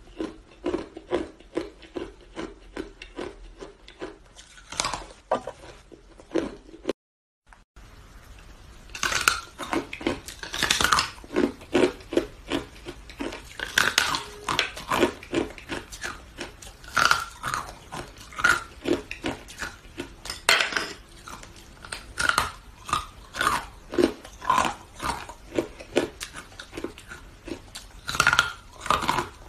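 Twisted sticks of purple hard ice being bitten and chewed close up: a quick run of sharp crunches and cracks, with a brief dead gap about seven seconds in.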